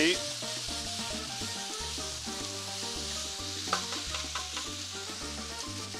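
Sliced onions and bell peppers sizzling in a nonstick skillet as they are stirred with a spatula. There are a few light knocks about four seconds in.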